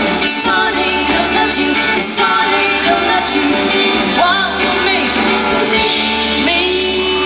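Live rock band playing the closing bars of a song, with guitar and a woman singing.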